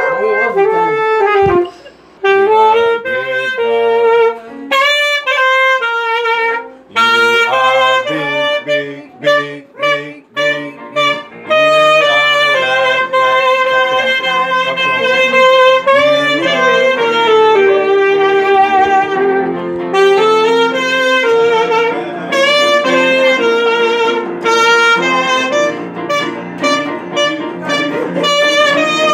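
Saxophone playing a melody live, in short phrases at first and in longer, more continuous lines from about twelve seconds in.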